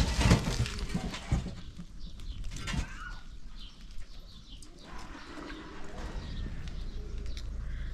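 Large metal cooking pots stirred with long ladles and paddles over wood fires: irregular knocks and scrapes, busiest in the first second and a half.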